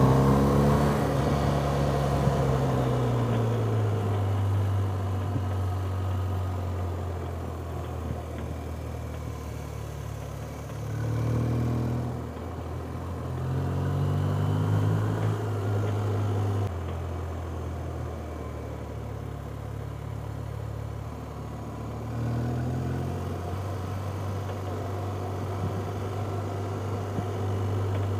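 A car engine running under way, rising in pitch as it accelerates and falling back as it eases off, several times over.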